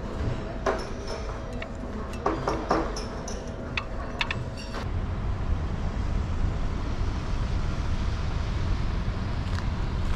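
Light clinks of chopsticks and tableware over dining-room hubbub, then, about five seconds in, a switch to a steady low rumble of street traffic.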